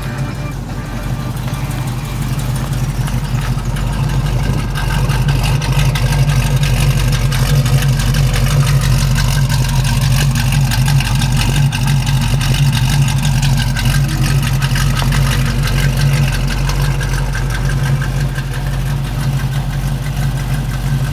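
1997 Volkswagen Jetta's engine idling steadily through a modified muffler system, a deep, even exhaust note meant to mimic a V8. It grows louder over the first few seconds and then holds.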